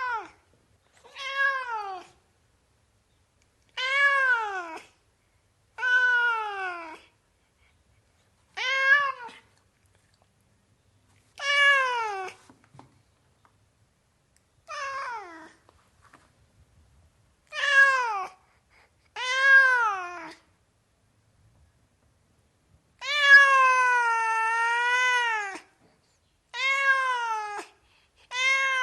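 Domestic cat meowing over and over, about a dozen separate meows a second or two apart, each rising then falling in pitch. One meow late on is drawn out for about three seconds.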